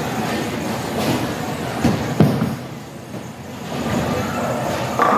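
A bowling ball lands on the wooden lane with a sharp thud about two seconds in and rolls away with a rumble that grows toward the end, where it reaches the pins. The clatter of a busy bowling alley runs underneath.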